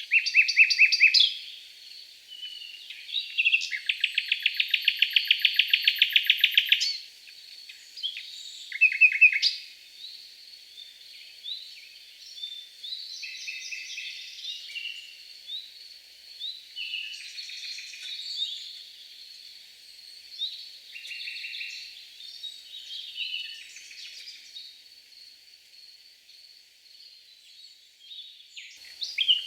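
Several songbirds singing and calling in overlapping chirps and phrases, with one long rapid trill about four seconds in lasting about three seconds. A faint steady high tone runs underneath.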